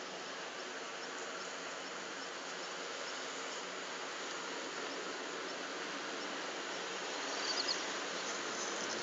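Steady outdoor hiss with faint, evenly repeating high insect chirps. A short cluster of louder high chirps comes near the end.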